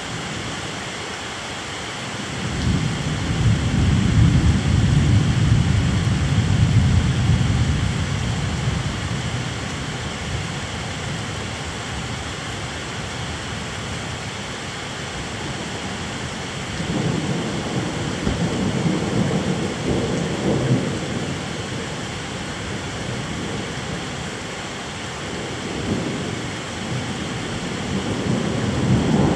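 Steady rain with rolling thunder: a long deep rumble starts about two seconds in and lasts around eight seconds, a second rumble comes past the middle, and a third builds near the end.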